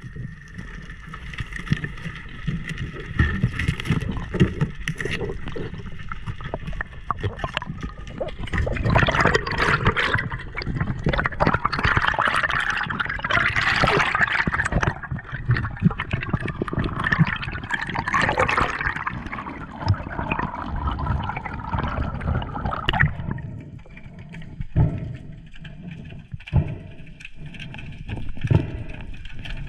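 Underwater sound heard through a diver's camera: water swishing and gurgling, with many small clicks and knocks, louder and busier through the middle and quieter near the end.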